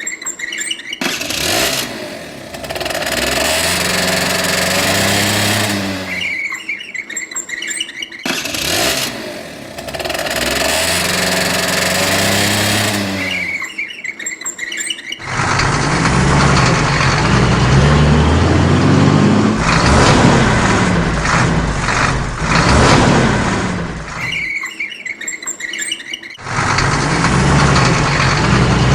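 A run of short motor-vehicle engine recordings: engines accelerating, the pitch climbing and dropping back in steps as they shift gears. Each recording is separated by a brief gap of high chirping.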